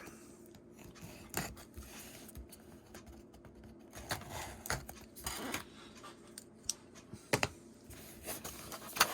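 Seal of a cardboard box of trading cards being broken open: irregular scraping and tearing with a few sharp clicks.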